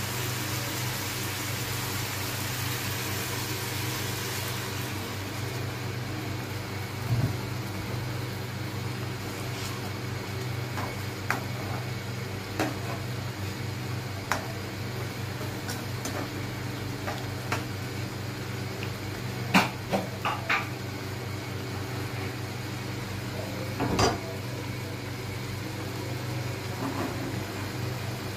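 Steady electrical hum of a portable induction cooktop running under a pan of simmering chicken gravy, with a sizzling hiss that fades after the first few seconds. Later a metal slotted spatula stirs the gravy, giving scattered taps and scrapes against the pan, the sharpest a little past the middle.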